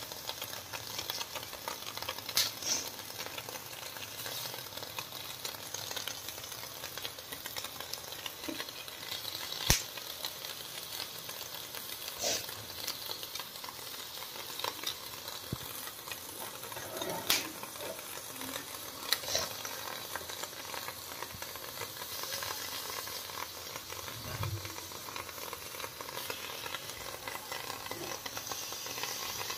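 Steady sizzling hiss from cabbage leaves being laid and pressed onto a hot sizzler plate, with a few sharp clicks and taps scattered through it.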